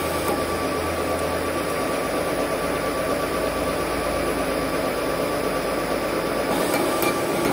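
Metal lathe running steadily with flood coolant spraying onto the spinning work during a parting-off cut, with a faint steady high whine over the noise.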